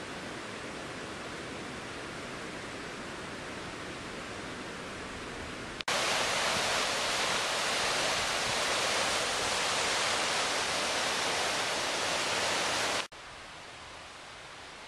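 Steady rushing of water from a forest stream or cascade, loud from about six seconds in and cut off abruptly near thirteen seconds. Before and after it, a quieter steady hiss.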